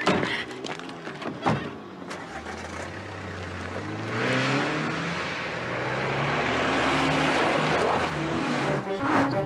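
Two car doors shut near the start, then a car engine accelerates away, its pitch climbing and growing louder, with road and tyre noise swelling around it.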